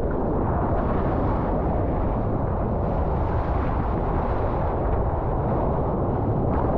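Steady low rush of water and wind buffeting a GoPro action camera's microphone while surfing, with no separate splashes or strokes.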